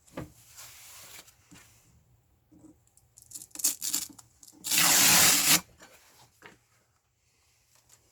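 Short bursts of rubbing and scraping, the loudest a rasp lasting about a second, about five seconds in.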